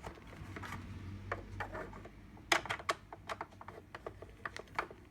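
Irregular light clicks and knocks of a fan heater's plastic casing being handled while its screws are done up by hand with a small screwdriver.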